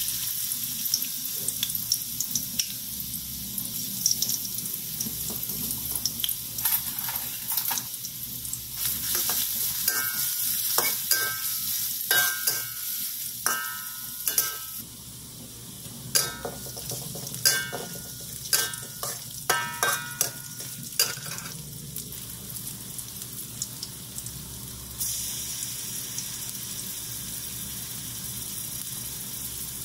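Hot oil sizzling in a wok as shredded ginger fries. In the middle stretch a metal spatula scrapes and clinks against the wok in repeated bursts.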